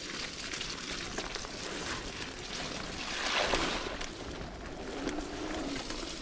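Mountain bike rolling and sliding down a muddy trail: tyres slithering through wet mud with small rattling clicks from the bike, and a louder sliding hiss about three seconds in.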